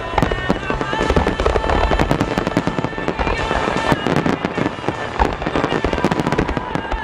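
Wide starmine fireworks barrage: a rapid, unbroken string of shell bursts and crackling reports over a continuous low rumble, with music playing underneath.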